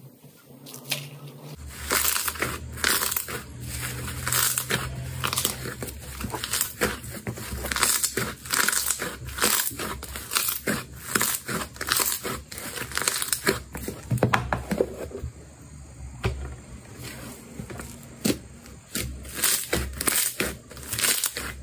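Clear slime being squeezed and pressed by hand, giving a dense run of sticky pops and crackles that starts about a second and a half in.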